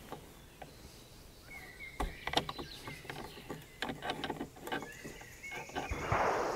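Faint metallic clicks and scrapes of a nipple wrench turning the percussion nipple out of a caplock muzzleloading rifle, with a soft rustle near the end.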